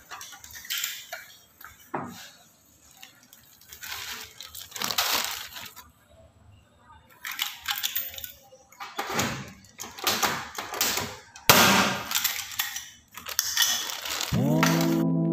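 Cordless drill run in short, irregular bursts against the aluminium sliding-door frame, with sharp knocks between them. Near the end a sustained, bell-like music chime begins.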